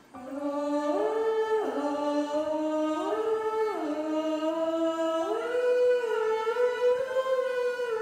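A wordless voice sings a slow melody in the film's score. It swoops up and back down between long held notes three times, then holds a higher note that wavers slightly.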